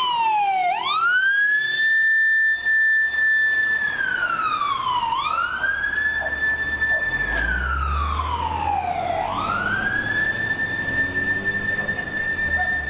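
Emergency vehicle siren wailing, its pitch sliding down and then sweeping quickly back up to hold high, three cycles about four seconds apart. A low rumble joins about seven seconds in.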